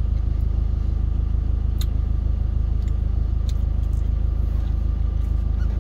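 Truck engine idling, heard from inside the cab: a steady low rumble with a fast, even pulse.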